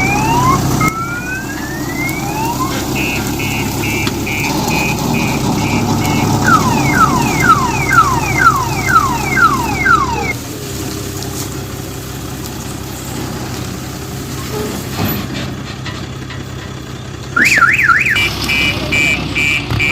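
Electronic multi-tone vehicle alarm siren cycling through its patterns: rising whoops, a run of rapid beeps, then falling chirps about two a second. After a pause of several seconds with only a diesel engine running underneath, it starts again near the end with a fast up-and-down warble and more beeps.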